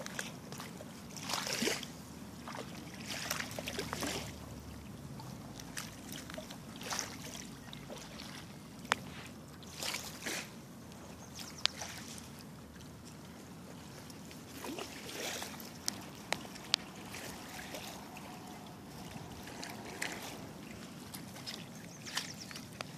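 Shallow river water sloshing and splashing at a rocky shoreline in irregular short bursts, with a few sharp ticks.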